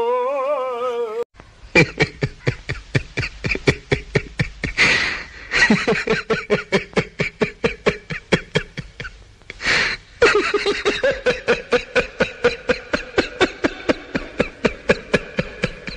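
A man's sung line ends about a second in, then a long bout of rhythmic laughter follows, short ha-ha pulses about four a second, with two gasping breaths in between.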